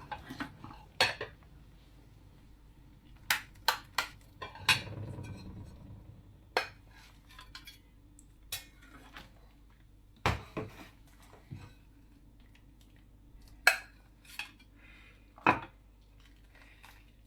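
Dishes and eating utensils clinking and knocking together: a dozen or so sharp, separate strikes at irregular intervals.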